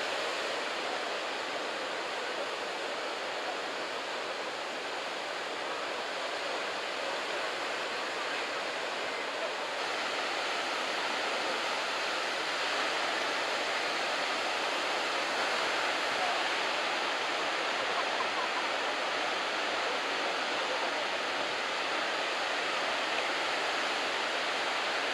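Continuous hiss and wash of breaking surf from a head-high typhoon swell, with no single wave crash standing out; it grows a little louder about ten seconds in.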